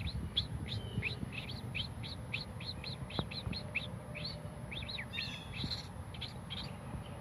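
A person's vocal imitation of a common starling's call: a quick series of short, sharp chirps, about three a second, stopping about six seconds in.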